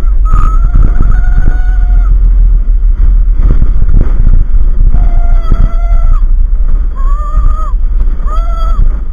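Strong wind buffeting the microphone throughout, with a high pitched call sounding over it several times, each held for about a second.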